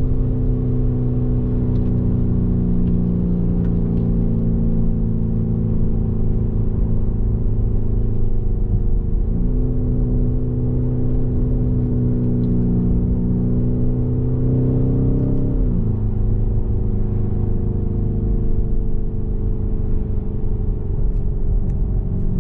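2021 Lamborghini Urus's twin-turbo 4.0-litre V8 running steadily while driving. Its note steps up abruptly about nine seconds in and drops back about six seconds later.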